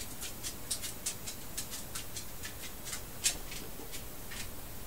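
Light, irregular clicking of a computer mouse, several clicks a second, with one sharper click a little past three seconds in.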